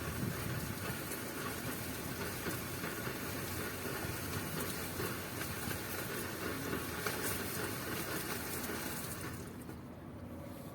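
A steady hiss. Its high end drops away about nine seconds in, leaving a duller, quieter rush.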